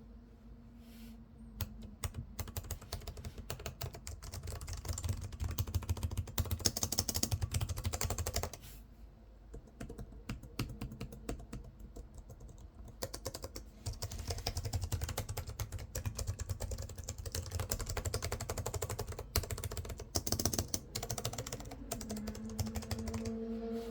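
Fast typing on the MSI Titan 18 HX laptop's mechanical keyboard with Cherry MX switches: dense runs of key clicks, easing off for a few seconds around the middle before picking up again.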